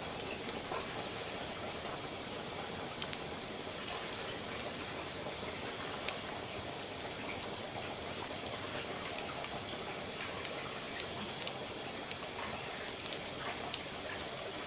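A cricket trilling steadily at a high pitch, with scattered small crackles from the wood fire burning under a cooking pot.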